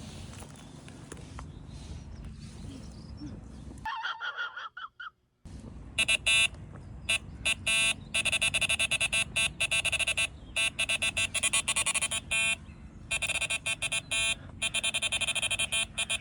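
Electronic carp bite alarm sounding a run: loud, rapid beeping in long bursts with short gaps, starting about six seconds in after a brief silence. It is the sign of a fish taking the bait and pulling line.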